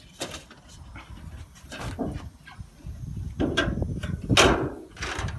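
A dog panting in irregular noisy bursts, the longest and loudest swelling up about four seconds in.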